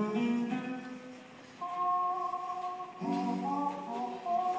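Instrumental stage music playing held chords, with a new chord coming in about one and a half seconds in and another about three seconds in.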